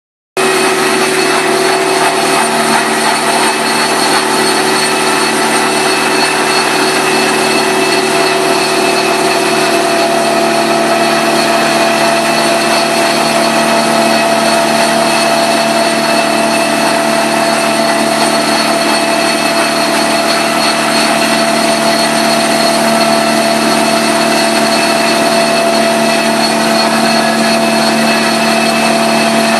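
Rotary carpet extractor running steadily, its motor-driven cleaning head spinning on the carpet while the vacuum hose draws suction: a loud, steady whine over a rushing hiss.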